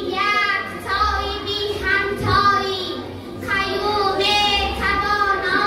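A teenage girl declaiming a Persian poem into a microphone in a drawn-out, sing-song voice, with long held vowels and short pauses between phrases.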